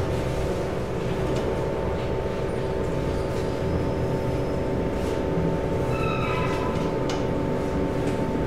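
Otis traction elevator car travelling in its shaft, heard from inside the car: a steady running rumble with a hum of several steady tones. A short, higher whine is added about six seconds in.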